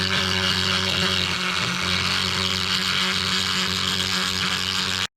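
Small rotary grinding tool running steadily at one speed, grinding down the edge of a hole cut in an aluminium side wall to enlarge it by a few millimetres. It cuts off abruptly near the end.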